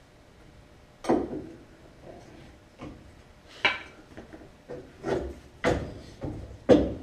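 Mini sledgehammer blows on the front suspension of a 1970 Chevy Nova, trying to knock the seized upper ball joint loose from the spindle. There are about six irregularly spaced heavy strikes, each with a short metallic ring, the loudest about a second in and near the end.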